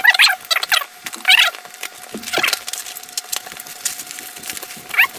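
Packaging being unwrapped by hand: irregular bursts of crinkling and rustling, the loudest in the first second, with a faint steady hum underneath.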